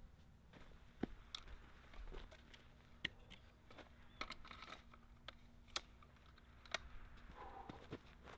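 Faint clicks and small knocks of handling gear as a scoped bolt-action rifle is lifted and set into the head of a tall tripod, with several sharper clicks spread irregularly through. A faint steady hum sits underneath.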